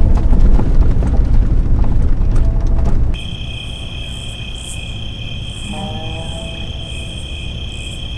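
A vehicle driving on a rough dirt track gives a loud low rumble for about three seconds, then cuts off. A steady night chorus of insects follows: crickets or katydids on two high trilling tones with a pulsing buzz above them, and a couple of short pitched calls about six seconds in.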